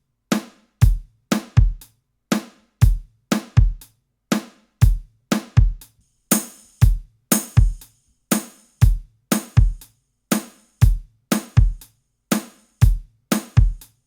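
A two-bar drum groove built from recorded acoustic drum-kit samples plays as a repeating loop: kick, snare and hi-hats with tight, dry hits and short gaps between them. About six seconds in, a brighter, crisper top end joins the hits.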